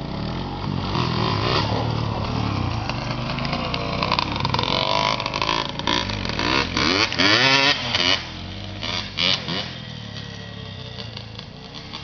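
Two quad ATV engines, a Yamaha Blaster two-stroke and a Honda Recon, revving up and down as the riders pull wheelies. The pitch rises and falls repeatedly and is loudest between about four and eight seconds in, then eases off near the end.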